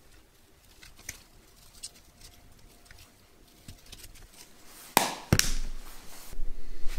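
Plastic seasoning shaker shaken over raw quail on a cutting board, with faint scattered clicks and patter of the rub. About five seconds in come two sharp knocks, the shaker set down on the granite countertop, then low handling noise.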